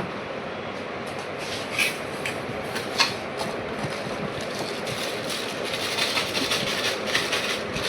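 Light clicks and taps of a laptop being handled over a steady background hiss: two sharper clicks in the first half, then a run of small clicks.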